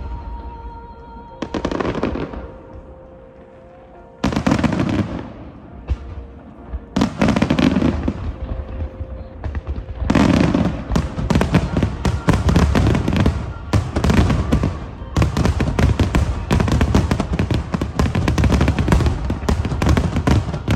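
Aerial fireworks shells bursting with deep booms, a few seconds apart at first. From about halfway on they give way to a dense, rapid barrage of overlapping bangs and crackles.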